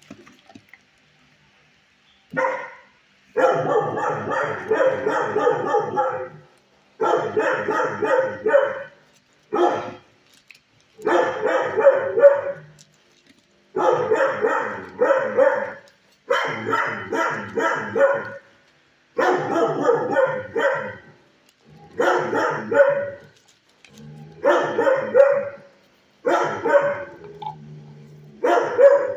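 Dog barking in repeated bursts of rapid barks, a new run every two to three seconds, starting about two seconds in.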